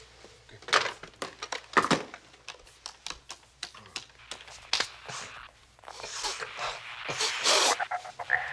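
Clicks and knocks of a desk telephone being handled and switched to speaker, followed from about halfway by a louder, uneven rustling hiss.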